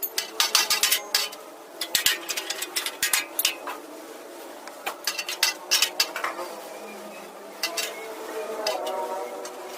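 Irregular clusters of light, sharp metallic clinks and taps: hand tools knocking against and handling sheet-metal body panels.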